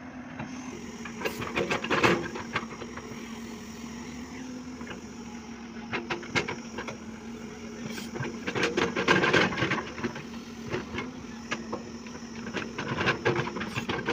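JCB tracked excavator's engine running steadily, with bursts of knocks and clatter from the bucket and arm working the soil, loudest about two seconds in and again around nine seconds in.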